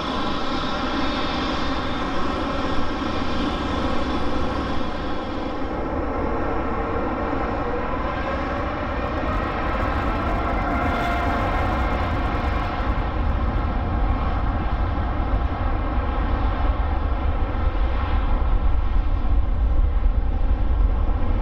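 Boeing 787-9 Dreamliner's Rolls-Royce Trent 1000 turbofans running as the jet taxies onto the runway, a steady whine of engine tones over a rumble. The low rumble grows louder over the last few seconds as thrust comes up for the takeoff roll.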